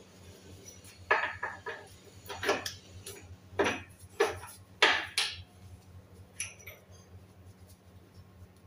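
Metal tools and parts clanking under a car's front end during power-steering rack-end work: about ten sharp metallic knocks with a short ring, bunched between one and five and a half seconds in, then two lighter clicks. A steady low hum runs underneath.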